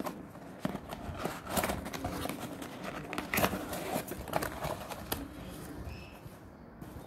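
Cardboard shipping box handled and opened by hand: flaps rustling and scraping with sharp crackles as the boxed phone is pulled out, quietening near the end.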